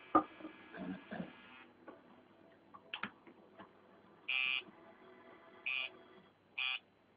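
Electric tattoo machine buzzing steadily, stopping about two seconds in, then run in three short buzzes a second or so apart near the end.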